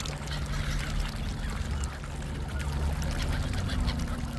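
Water splashing and lapping as mute swans dabble and feed at the surface, over a steady low rumble of wind on the microphone.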